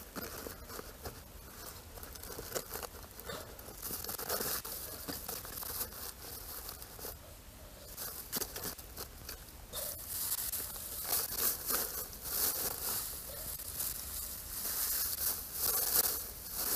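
Dry grass and banana leaves rustling and crackling as they are handled and piled on bare ground, in irregular crackles that grow busier in the second half.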